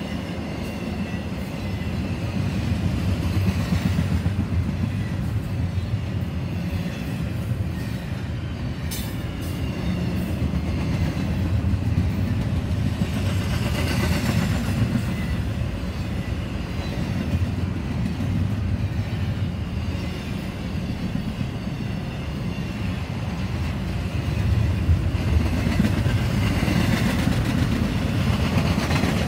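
Cars of a CSX intermodal freight train rolling past on steel wheels: a continuous low rumble that swells a little now and then. Faint thin squealing tones sit above the rumble.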